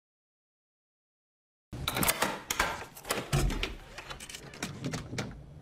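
Silence for nearly two seconds, then a quick, irregular run of clicks, rattles and knocks from an apartment door's locks being undone and the door opened a crack.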